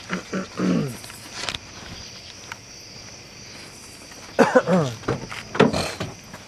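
Insects trilling steadily outdoors at night, with footsteps. Three louder bursts of short sounds that fall in pitch stand out, about half a second in and twice near the end.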